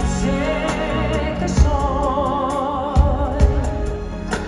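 Live pop band with a lead singer, heard from the audience: the voice holds long notes with vibrato over the band, punctuated by drum hits.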